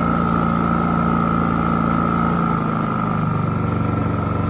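Champion 4650 inverter generator running under load from a plugged-in heat gun: a steady engine note with a steady high whine over it. A couple of seconds in, the engine note shifts and drops a little in level, and near the end a sharp click is followed by the earlier note.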